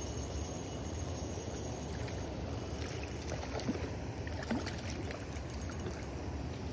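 Trout splashing and thrashing at the water's surface as it is scooped into a landing net, a few short splashes around the middle, over a steady low background rumble.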